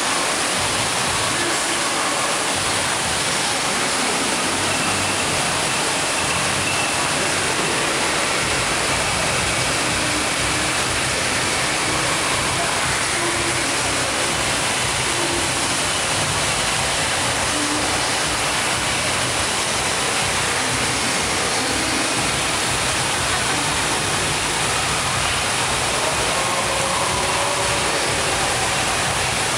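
Steady rushing-water din of an indoor waterpark, an even hiss that holds without a break.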